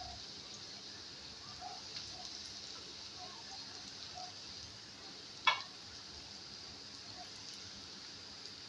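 Bread pieces frying in hot refined oil in a frying pan: a steady sizzle with small pops. A single sharp tap about five and a half seconds in.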